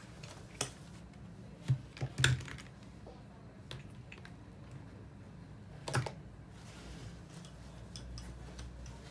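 Plastic-capped paint tubes clacking against each other and on a wooden tabletop as they are shifted by hand: a few sharp clicks, with a cluster of them about two seconds in and another near six seconds.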